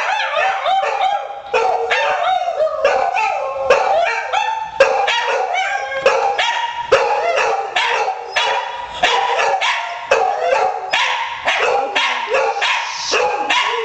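A hound and a poodle howling and barking together without pause, their wavering howls overlapping. It is their response to the owner's cell phone missed-call alert.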